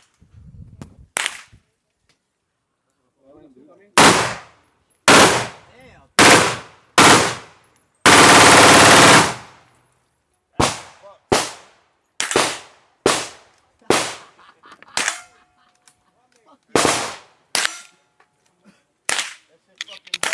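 Gunfire from a semi-automatic firearm: single shots about a second apart, then a rapid unbroken string of shots lasting about a second and a half, then more single shots at uneven intervals.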